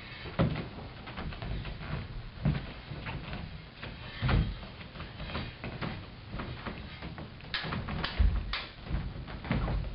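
Stage swords clashing in a fencing duel: a string of sharp clicks and clanks, with three brighter strikes in quick succession near the end. Heavy thumps of the fencers' feet land on the stage floor in between.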